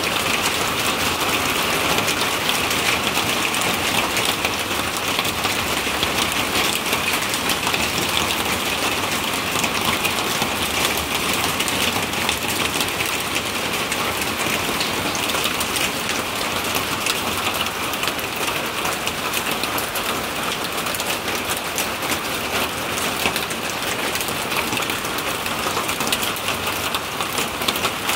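Hail and heavy rain pelting down on a corrugated roof and the ground. It makes a dense, steady clatter of countless small impacts that does not let up.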